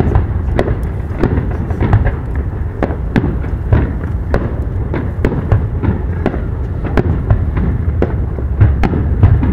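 Aerial fireworks bursting in quick succession: sharp bangs about twice a second over a continuous low rumble of reports.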